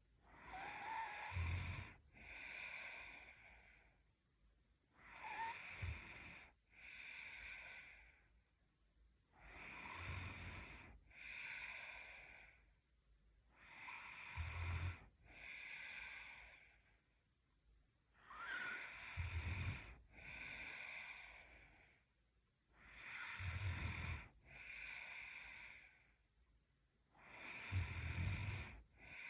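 A woman snoring in her sleep: slow, even breaths about every four seconds, each a rough, rattling snore followed by a softer breath.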